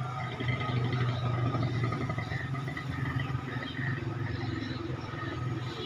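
A motor engine running steadily: a low, even hum that holds its pitch.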